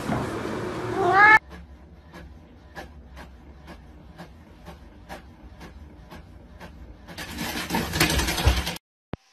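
A cat meows once, rising in pitch about a second in and cut off short. Then a home printer's mechanism ticks steadily, about three times a second, and runs with a louder whirr near the end.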